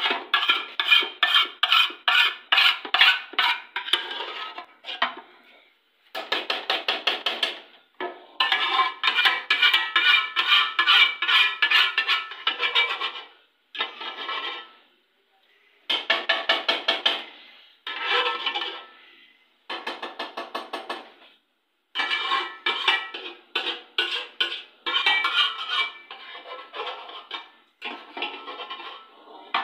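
Metal spoon scraping the inside of a metal bowl and then a large metal tray, in fast ringing strokes that come in bursts of a few seconds with short pauses between.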